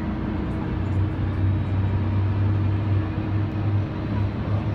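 Steady low drone of a twin-engine jet airliner and its towing tug on the apron during pushback, a low hum holding level under an even rush of engine noise.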